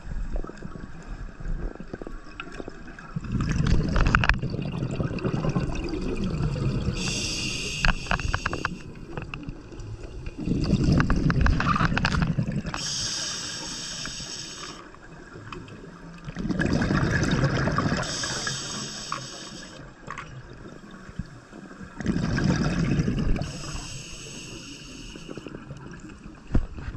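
A scuba diver breathing through a regulator underwater. A hissing inhale through the demand valve alternates with a low bubbling rush of exhaled bubbles, about four breaths, each roughly five to six seconds apart.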